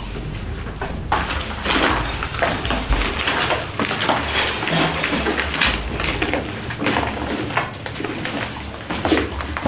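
Footsteps crunching over debris and the crinkling rustle of disposable plastic protective coveralls as people walk through an enclosed basement corridor. The sounds are irregular and start about a second in.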